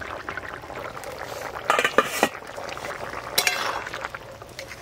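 Spatula scraping and clinking against a stainless steel bowl as fried brinjal pieces are pushed into a pot of boiling curry. The clattering is loudest about two seconds in and again about three and a half seconds in, over the bubbling of the broth.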